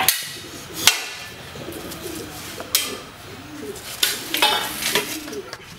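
Sword striking a round shield in a kalaripayattu sword-and-shield bout: sharp metallic clashes at irregular intervals, several over a few seconds, one of them ringing briefly.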